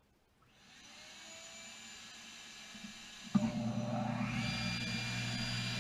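A motor starts running faintly about half a second in. About three seconds in a table saw switches on with a thump, and its motor hum and a rising whine build as the blade spins up to speed, then hold steady.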